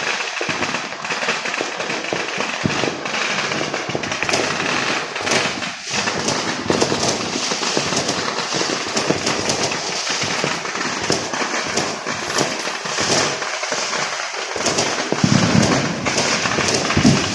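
Fireworks and firecrackers going off in a dense, continuous crackle of rapid bangs, with a few heavier, deeper booms near the end.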